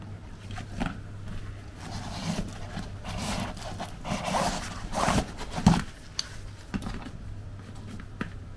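Fabric bike bag being handled: a zipper pulled and rustling, scraping handling of the bag and its strap, loudest in the middle, with a few small clicks.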